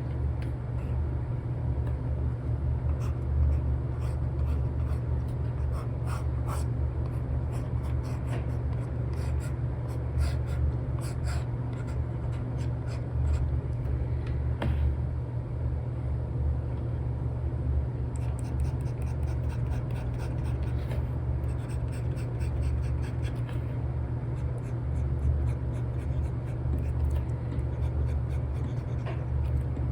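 Apple Pencil with an Elecom nib drawing on an iPad's paper-like screen film: many short scratchy strokes and taps, over a steady low rumble.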